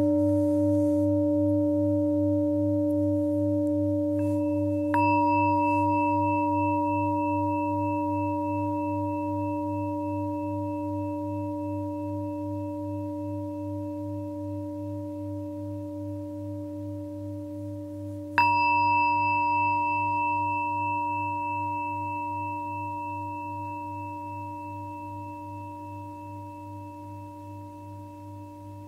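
Singing bowls ringing. A low, slowly pulsing tone sustains throughout, and a higher-pitched bowl is struck twice, about five seconds in and again about eighteen seconds in. Each strike rings on and slowly fades.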